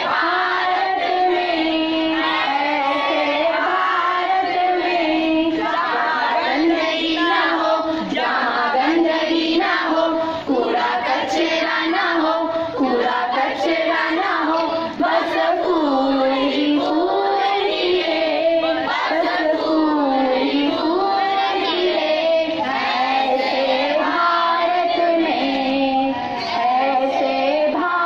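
A group of children singing a song together, with long held notes that rise and fall in an unbroken melody.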